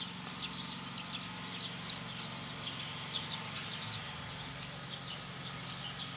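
Many small birds chirping in quick, dense, overlapping chirps, over a steady low hum.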